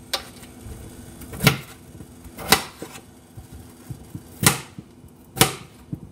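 Knife blade chopping through raw potato pieces and knocking against the metal baking sheet underneath, about five sharp knocks roughly a second apart.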